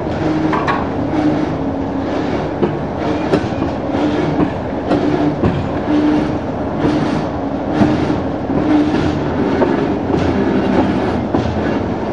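Railway turntable turning with a steam tank locomotive and a boxcar on its bridge: a steady low hum with short hissing pulses about once a second.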